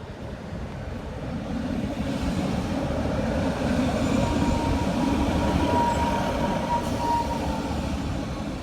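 Class 156 diesel multiple unit pulling into the station, its running noise swelling as it draws near. A thin steady squeal sounds from about four seconds in as it slows.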